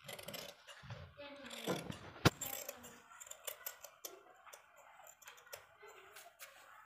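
Tailor's scissors cutting through sequin-embroidered fabric: a run of short blade snips and clicks, with one sharp, louder click a little over two seconds in.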